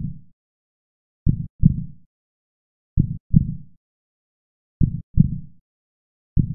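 Heartbeat sound effect: slow lub-dub double thumps, one pair about every 1.7 seconds, with dead silence between.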